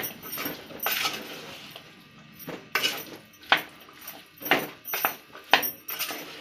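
Spatula scraping and knocking against the side of an aluminium pan as boiled chickpeas are stirred and mixed with spices, a string of irregular scrapes and taps, sparser around two seconds in.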